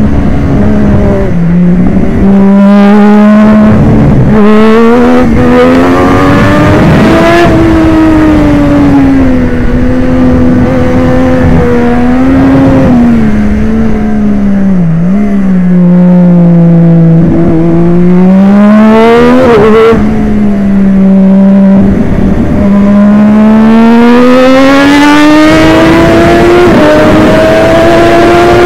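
Triumph Daytona 675 three-cylinder engine at racing speed, recorded on board. It is loud throughout, and its pitch rises and falls with acceleration, gear changes and braking. The pitch climbs steadily near the end.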